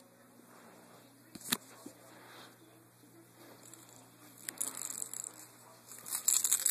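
Faint scuffling and rustling of a cat tussling with a catnip toy on carpet, with one sharp click about a second and a half in and louder scratchy rustling near the end.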